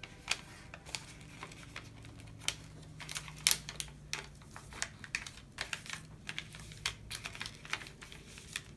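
Origami paper being folded and creased by hand: irregular crisp clicks and crinkles as the paper shifts and fingers press the folds flat.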